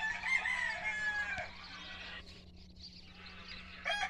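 Rooster crowing once, a call of about a second and a half that drops off at its end, with another crow starting near the end.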